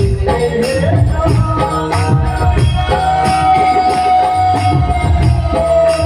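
Chhattisgarhi devotional folk music played live: a steady drum beat with jingling hand percussion under a melody that holds one long note through the second half.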